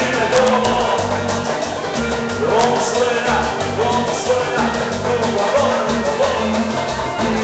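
Live band playing upbeat Latin dance music, with a repeating bass line, steady percussion and a voice over it, picked up loud by a phone microphone in the crowd.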